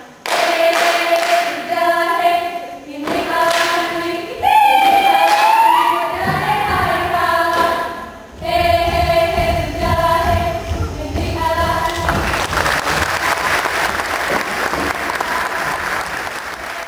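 A group of women singing a Saman chant together in unison, in short phrases, with low thuds underneath. About three-quarters of the way through, the singing gives way to audience applause, which fades at the end.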